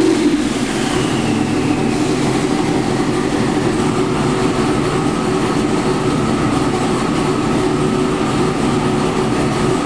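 632 cubic inch twin-turbo big-block Chevy engine on the dyno, running steadily. A high whine falls away over the first two seconds.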